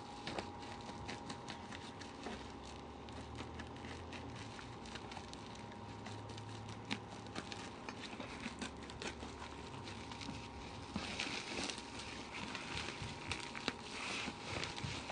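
Plastic parcel wrapping being handled: scattered small clicks and rustles, turning into denser crinkling of the plastic about eleven seconds in. A faint steady tone sits underneath.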